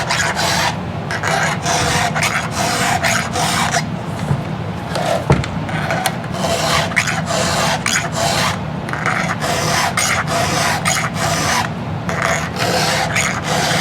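A round file rasping across the cutter teeth of a chainsaw chain in steady, even strokes, about two a second, touching up a chain that is just slightly dull.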